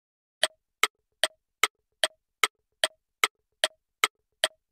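Quiz countdown timer sound effect: short electronic ticks, evenly spaced at about two and a half per second, starting about half a second in.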